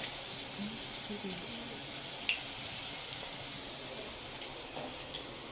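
Chopped onion frying in hot oil in a steel kadai: a steady sizzle with a few short pops and ticks scattered through it.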